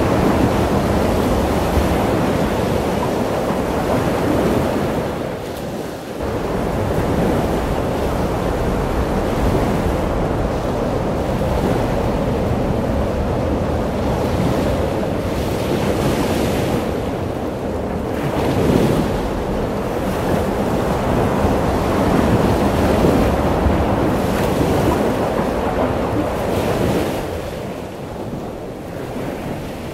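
Ocean surf breaking and washing in, with wind rumbling on the microphone. The noise is steady, with a short dip about six seconds in and a brief surge of surf a little before two-thirds of the way through.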